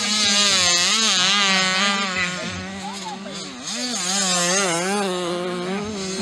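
Small junior motocross bike engines revving up and down as riders work the throttle through a tight corner; the pitch dips about three and a half seconds in and climbs again.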